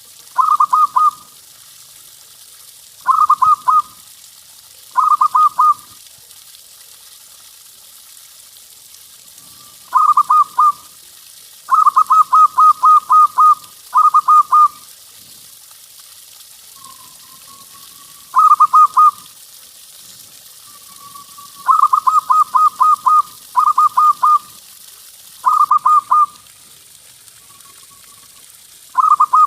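Zebra dove (perkutut) cooing: about a dozen short, loud phrases of rapid staccato notes, some drawn out into longer trilled runs, with a few soft, drawn-out coos between them.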